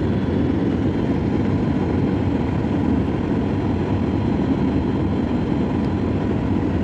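Steady engine and airflow noise inside the cabin of an Akasa Air Boeing 737 MAX airliner on its landing approach, an even low rumble with no change in level.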